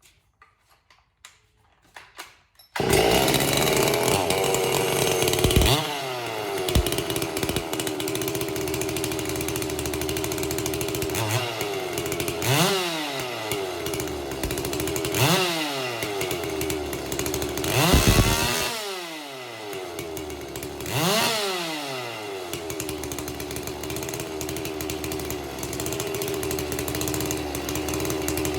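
A Stihl MS440 two-stroke chainsaw starts up about three seconds in and runs, its throttle blipped about five times so the engine revs up and falls back to idle between blips.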